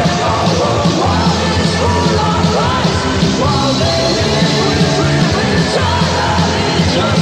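Recorded heavy rock or metal song: a full band playing loud and steady, with yelled, sung vocals over it.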